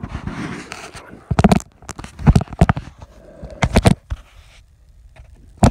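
Handling noise from hands working with a roll of plumber's tape and the phone held close: scrapes and rustles with several sharp knocks, the loudest right at the end.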